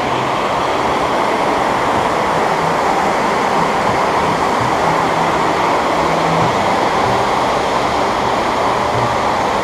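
Waterfall: falling water rushing in a steady, loud, even hiss.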